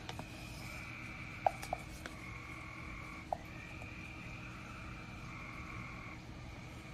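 A faint, steady high-pitched trilling in the background that stops and starts a few times, with a few light taps of a wooden stirring stick against a plastic measuring cup about one and a half and three seconds in.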